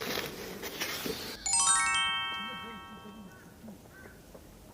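A bright electronic chime, a single ding that starts sharply about a second and a half in and fades away over about two seconds, after a brief rustling hiss.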